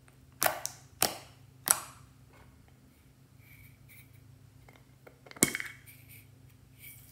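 Fingers pressing into glossy slime, making three sharp pops of trapped air about half a second apart. About five seconds in, the lid of a donut-shaped metal tin comes open with a single sharp click.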